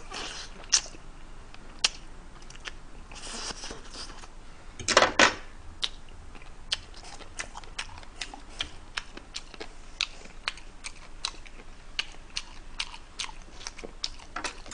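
Close mouth sounds of a man chewing a mouthful of chicken tteokbokki, with rice cakes and fried chicken: a steady run of short clicks, about two or three a second. A louder short burst about five seconds in.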